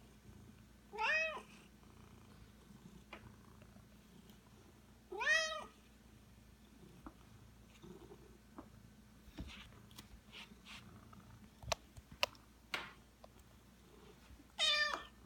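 Domestic cat meowing three times, several seconds apart, each meow rising then falling in pitch: a hungry cat asking for food. A few faint clicks fall between the second and third meows.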